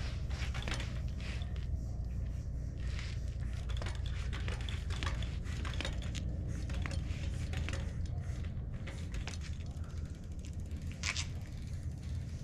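Trials bicycle rolling and balancing slowly on a concrete driveway: scattered small clicks and crackles from the tyres and bike, over a steady low rumble.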